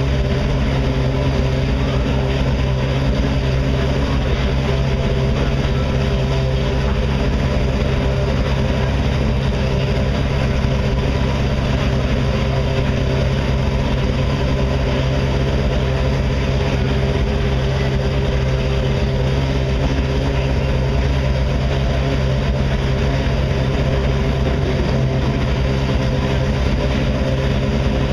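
Ferrari 458 Italia GT2 race car's V8 idling steadily while warming up, holding an even pitch with no revs.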